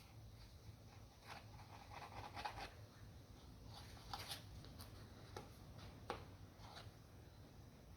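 Faint rustling and scratching with a few small clicks, like light handling of objects on a work surface, over a low steady hum.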